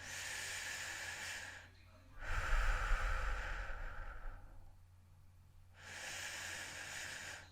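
A person breathing heavily and slowly: three long, hissy breaths with short pauses between them. The middle breath, about two seconds in, is the loudest and has a low rumble of air on the microphone.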